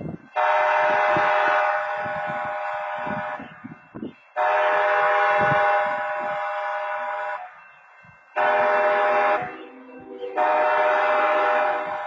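Railroad crossing horns sounding the grade-crossing pattern: two long blasts, a short one, then a long one, each a steady multi-note horn chord. A lower horn chord joins under the short and last blasts: the locomotive's own horn sounding at a crossing whose wayside horns are already active.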